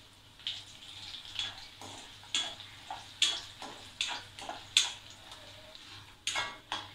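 Oil sizzling in a kadai as mustard seeds, urad dal, chana dal and dried red chillies fry for a tempering, under irregular sharp crackles and the scrape and clink of a perforated steel spatula stirring against the pan.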